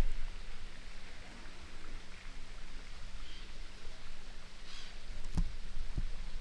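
Low steady rumble with a faint constant hum, two brief faint high chirps partway through, and two short knocks about half a second apart near the end.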